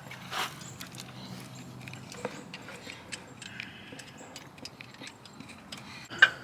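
Metal hand tools clicking and clinking as sockets are sorted and tried for one that fits the oil drain bolt, with one sharper metallic click near the end.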